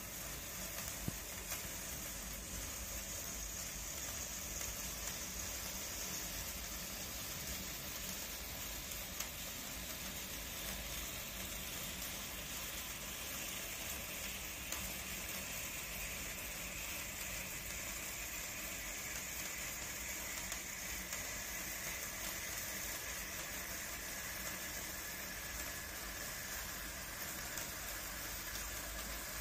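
Indoor cake fountain (cake-candle spark fountain) burning with a steady sizzling hiss, with a few small crackles.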